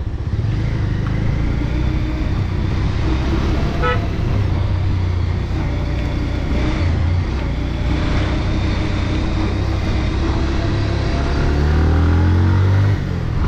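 Road traffic: steady vehicle engine and road rumble, with a short horn beep about four seconds in and an engine rising in pitch as it speeds up near the end.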